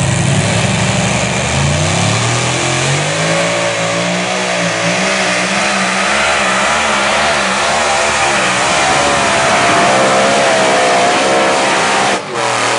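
Modified pulling tractor's engine running flat out under load as it pulls the sled. The engine's pitch climbs about two seconds in, then wavers up and down, and the sound drops off abruptly near the end.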